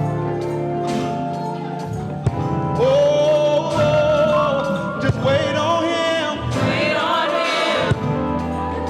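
Gospel choir music: steady instrumental chords, then singing comes in about three seconds in, with a long held note and wavering vocal runs after it.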